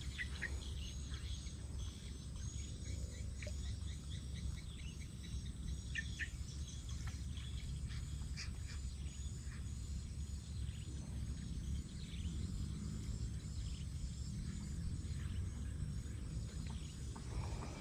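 Outdoor swamp ambience: a high, thin chirping call repeated at a regular pace without a break, with scattered short bird chirps and a steady low rumble of wind.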